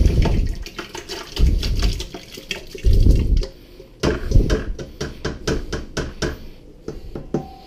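Sweet dark cherries and their juice poured from a stainless steel bowl into a plastic bucket of honey water. There are several heavy splashes over the first four or five seconds, mixed with wet clicks and plops, then smaller drips and clicks.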